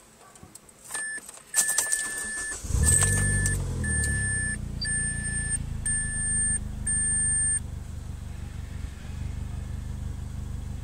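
Mazdaspeed Protege's turbocharged 2.0-litre four-cylinder engine cranks and starts about three seconds in, revs briefly and settles into a steady idle. Key clicks come first, and a dashboard chime beeps about seven times evenly before stopping near the end of the start.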